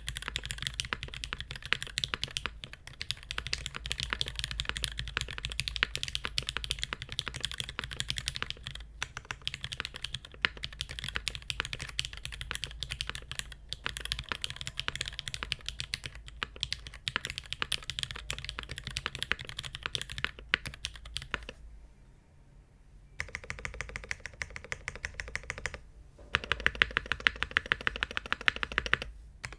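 Fast, continuous typing on an Iron180 mechanical keyboard with a brass plate and no dampening, its broken-in, lubed Cherry MX Black Hyperglide linear switches and GMK keycaps giving a rapid stream of keystrokes. The typing stops briefly about three quarters of the way through, then resumes with louder strokes near the end.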